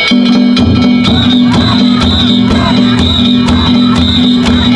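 Music with a steady beat, held tones and regular sharp strikes, beginning abruptly, with voices over it.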